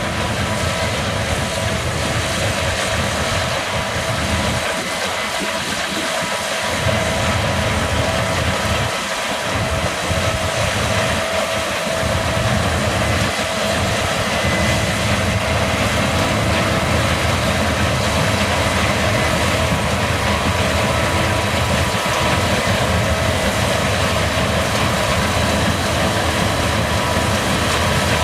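Case combine harvester running steadily while harvesting barley: a low engine drone under a steady high-pitched whine from the machine's drives.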